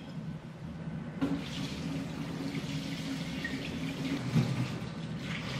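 Kitchen tap water running into a stainless steel sink as a drinking glass is rinsed under it, the flow starting with a click about a second in. A single knock comes about four seconds in.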